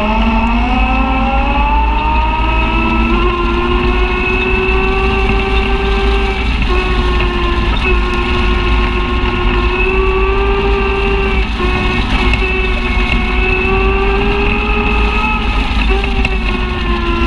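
Side-by-side UTV engine running under throttle, heard from on board. The revs climb over the first couple of seconds, then hold fairly steady with a few brief dips.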